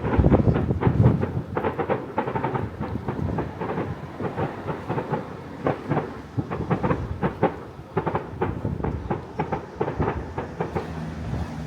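Fireworks bursting overhead: a rapid, irregular series of bangs and crackles, densest and loudest in the first couple of seconds and thinning somewhat later on.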